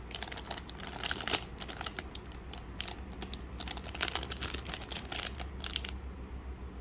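Quick clicks and crinkling of plastic packaging being handled, stopping about six seconds in.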